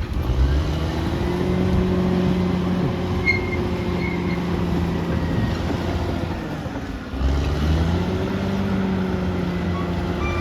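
Caterpillar D6R XL bulldozer's diesel engine working under load. The engine pitch sags and then climbs back at the start, and again about seven seconds in.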